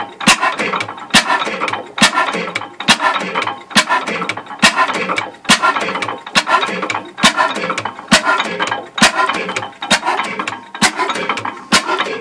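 Hornsby 5 hp hot-bulb oil engine running steadily: a sharp clack a little more than once a second, with lighter clicking and rattle from the valve gear and fuel pump between.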